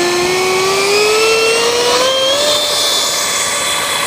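The 70 mm electric ducted fan of an Exceed RC F/A-18 model jet whining as it spools up under throttle. Its pitch climbs steadily for about two and a half seconds, then holds level.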